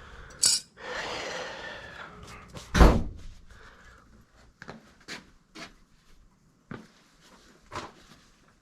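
A single heavy thump about three seconds in, after a short rush of noise, followed by scattered light clicks and knocks of handling.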